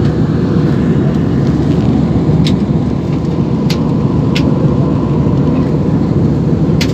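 Steady, loud roar of a jet airliner's engines and rushing air heard inside the passenger cabin in flight, with a few faint short clicks.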